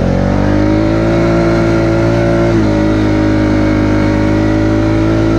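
Polaris four-wheeler engine held at high, steady revs while its wheels spin out in deep snow without traction. The pitch dips slightly about two and a half seconds in.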